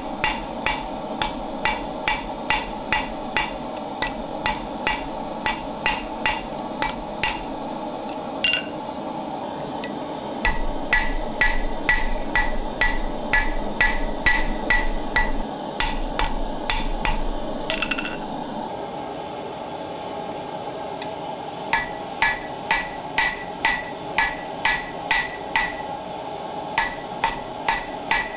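Hand hammer striking a red-hot 15 mm O1 tool-steel bar on an anvil, forging a lathe hook: quick runs of blows at about three a second, with the anvil ringing. The runs break off for a second or more about a third of the way in, again near two-thirds, and briefly near the end. Under it all runs the steady roar of a propane gas forge.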